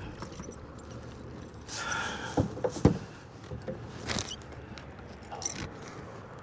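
Handling noises in a kayak after landing a small bass: a handful of sharp knocks and clicks spread over the seconds, over a low steady background.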